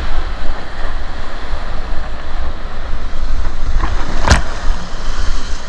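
Steady noise of river water with heavy wind rumble on the microphone, and a single sharp knock a little over four seconds in.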